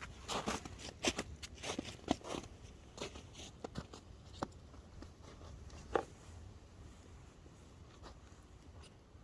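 Close handling noises: a quick run of rustles and clicks over the first couple of seconds, then a few scattered single clicks, the loudest about six seconds in.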